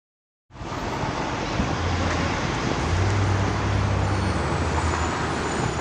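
Outdoor road traffic noise: a steady rush, with a low engine hum from a nearby vehicle through the middle few seconds.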